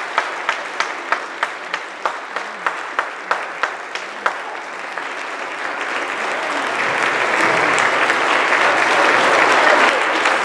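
An audience applauding, with one nearby person's loud claps standing out about three times a second for the first four seconds; the applause then swells and grows louder as the audience rises.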